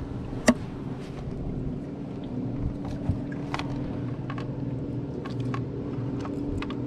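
A small motor hums steadily, with scattered sharp clicks and taps from handling on the boat; the loudest click comes about half a second in.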